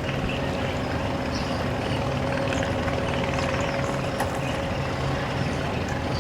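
An engine running steadily at an even pitch, a constant low hum.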